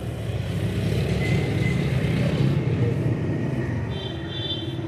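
Street traffic: a motor vehicle's low engine rumble swells and eases off as it passes close by, with a brief high-pitched tone near the end.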